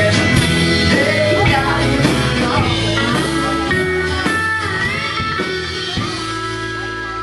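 Live band with electric bass, acoustic guitar, drums and pedal steel guitar playing amplified music. About six seconds in, the band lands on a final held chord that rings on as the sound fades down.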